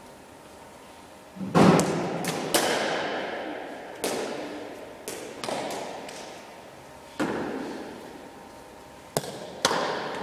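Irregular sharp knocks and thuds of cricket balls striking bats and the hard floor, each echoing for a second or more around the large sports hall, about eight in all.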